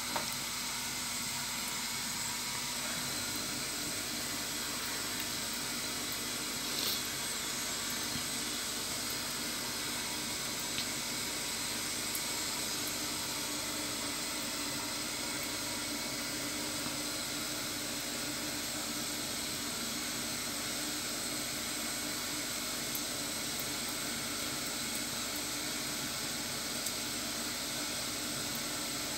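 Thin stream of tap water running steadily from a kitchen faucet into a stainless steel sink, an even hiss, with one brief click about seven seconds in.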